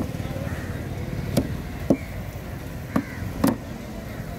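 A large curved knife chopping through a catfish on a wooden chopping board: five sharp, irregularly spaced strikes over a steady low rumble.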